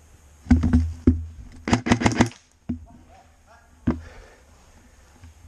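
Airsoft guns firing: a few single sharp cracks, a quick burst of about six shots about two seconds in, then two more single shots.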